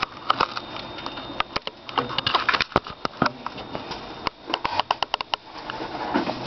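A run of sharp, irregular clicks and taps, most of them between about one and a half and five and a half seconds in.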